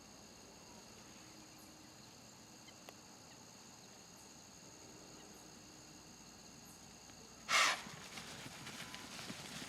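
Crickets chirping steadily, then near the end one loud, short whoosh of breath: a whitetail doe blowing, the alarm snort that spooks the deer off the field. Scattered rustling and steps follow as deer move off.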